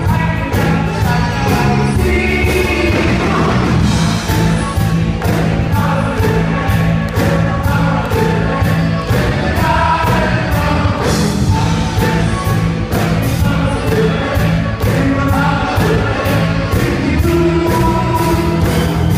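Live rock band playing with several voices singing: electric guitar, bass guitar, keyboards and drums with a steady beat.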